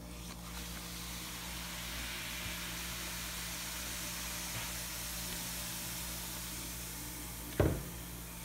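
Baking-soda-and-vinegar model volcano fizzing with a steady hiss as the poured vinegar foams up, starting about half a second in. A sharp knock comes near the end.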